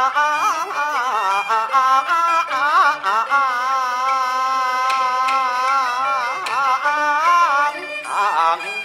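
Peking opera laosheng male voice drawing out a long melismatic tail on the last syllables of a fan erhuang line, accompanied by jinghu. The melody winds up and down, then holds one note with vibrato for about four seconds before breaking off near the end.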